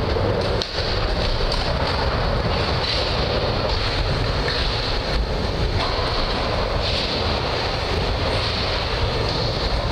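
Skateboard wheels rolling on a wooden mini ramp, a steady rumble, with a few sharp clacks of boards and trucks.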